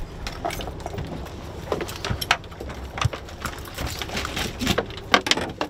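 Irregular knocks and slaps in a boat's fiberglass fish box as a freshly caught kingfish (king mackerel) is handled and its gills are cut to bleed it. The loudest knock comes about five seconds in.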